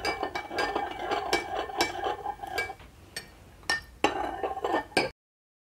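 Metal spoon stirring a drink in a glass measuring cup, clinking rapidly and repeatedly against the glass. The clinks thin out for about a second, pick up again, then the sound cuts off abruptly near the end.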